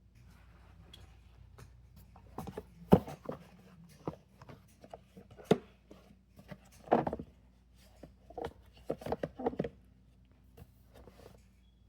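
Small fidget toys being handled and set down: irregular clicks, taps and short rustles, with the sharpest knock about three seconds in.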